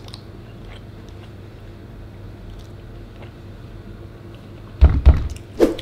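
A person chewing a mouthful of food, with faint soft clicks over a steady low hum. About five seconds in come a couple of loud low thumps and a brief vocal sound.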